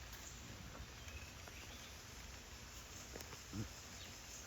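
Steady rain falling, an even soft hiss, with a few faint high chirps and a brief low voice sound about three and a half seconds in.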